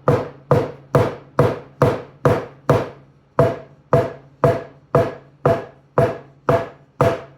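Wooden taiko bachi striking in a steady run of single strokes, about two a second with a short pause near three seconds in. Each hit carries a brief ring from the stick itself, the open, ringing sound of a stick allowed to bounce and caught loosely.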